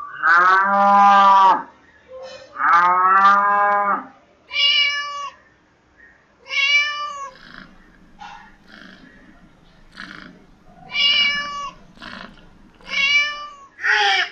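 A cow moos twice in long, low calls. Then a cat meows several times in short calls that rise and fall. A duck's harsh quacking begins right at the end.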